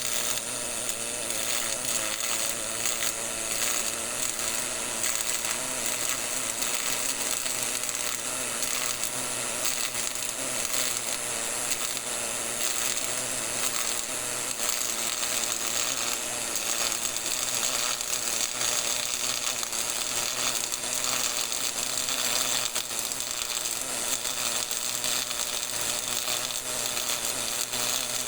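GMAW (MIG) welding arc: a steady, dense crackling buzz as the wire short-circuits into the weld pool.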